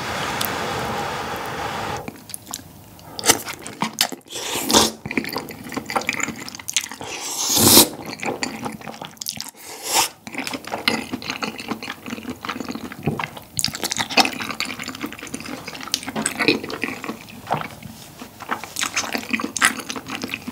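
A person slurping sauce-coated glass noodles from spicy tteokbokki in one long slurp over the first two seconds, then chewing wetly, with small sucking and smacking sounds and another loud slurp a little before the middle.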